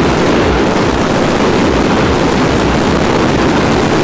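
A dense barrage of firecrackers and fireworks rockets going off together, so thick that the pops merge into one loud, steady noise.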